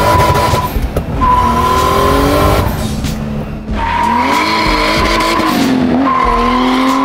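A turbocharged BMW inline-six engine, swapped into a BMW 2002, revs up and down while the tires squeal in long, steady screeches with short breaks between them, as the car slides.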